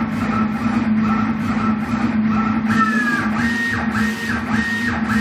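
Stepper motors of a Kossel delta 3D printer whining in pitched tones as the effector makes very fast moves. From about halfway, the tones step up and down in a pattern that repeats about every 0.6 s as the head runs up and down, over a steady low hum.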